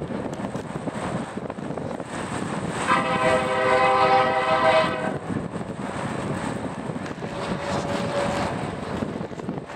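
Distant locomotive air horn sounding one long blast of several notes at once, starting about three seconds in and lasting about two seconds, over steady wind noise.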